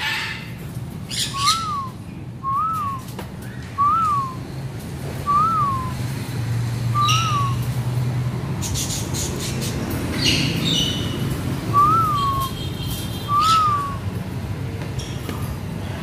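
Parrots calling in an aviary: a clear whistled note that rises and falls, repeated seven times at irregular intervals, with harsh squawks between.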